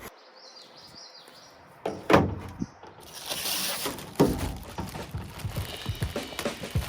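Building work by hand: a single knock about two seconds in, then scraping and clatter with repeated irregular knocks.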